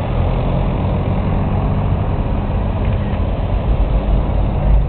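Tractor engine running steadily, a loud, even low hum.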